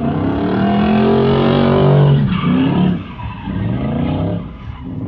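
Drift car's engine revving hard as it slides, with tyre squeal under it. The pitch climbs for about two seconds, drops sharply, then rises and falls again, and it is quieter from about three seconds in.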